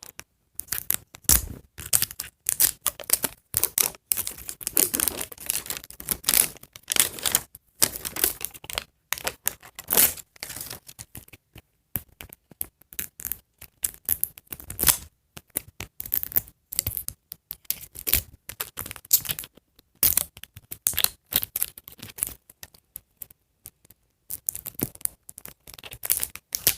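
Plastic wrapping layer of an L.O.L. Surprise ball crinkling and tearing as it is peeled off by hand with its zipper pull-tab, in irregular crackling bursts with short pauses. The wrapper is resisting and not peeling cleanly.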